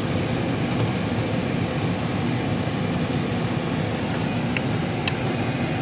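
Steady low rumble of car cabin noise inside an SUV, with a couple of faint ticks near the end.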